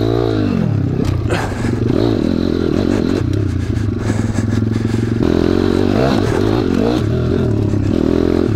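Pitbike's YX 180 single-cylinder four-stroke engine running while being ridden, its pitch rising and falling with the throttle, with a sharp clatter about a second in.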